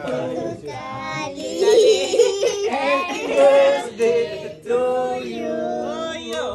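Several voices, adults and children, singing a birthday song together with held notes.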